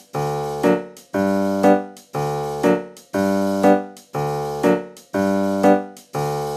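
Background music: keyboard chords struck in an even, repeating pattern about once a second, each chord fading and capped by a short accent note before the next.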